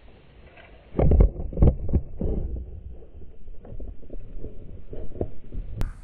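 A pike strikes a topwater walk-the-dog lure with a sudden splashing thump about a second in. Irregular low thumps and knocks follow as the hooked fish is fought and reeled in, with splashing at the surface.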